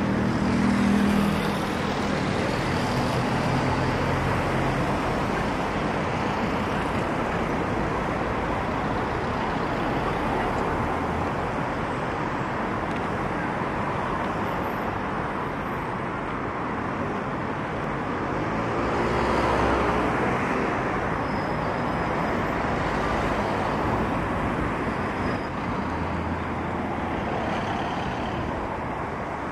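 Road traffic: cars driving past on a city street, with one vehicle passing close about a second in and another about two-thirds of the way through.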